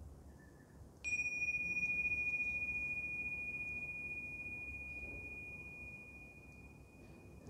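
Tingsha cymbals struck together once, about a second in, giving a single clear high ring that slowly fades away, sounding the close of the meditation practice.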